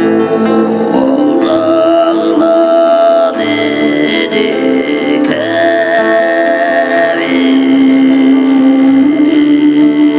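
Tuvan throat singing: a steady low drone with a whistling overtone melody above it, the high tone holding and then stepping to a new pitch every second or two, with instruments playing along.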